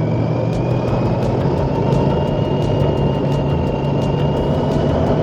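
Motorcycle engine running on the road, heard from the rider's position, its pitch rising slowly as the bike gathers speed, over steady wind and road noise.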